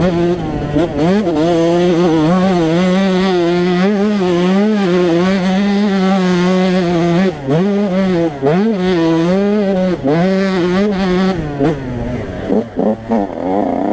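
Yamaha YZ125 two-stroke single-cylinder engine ridden hard, heard close from the bike itself, its pitch rising and falling constantly with the throttle. The throttle is shut briefly a few times, once around the middle and several times in quick succession near the end.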